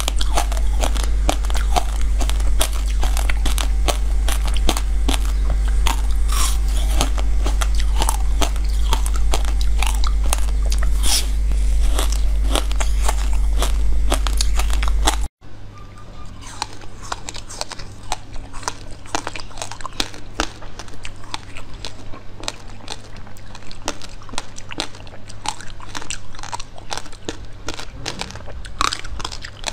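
Close-miked biting and chewing of hard ice, a dense run of sharp cracks and crunches as pieces break off and are crushed between the teeth, over a steady low hum. About halfway through it cuts to a second, quieter run of ice crunching.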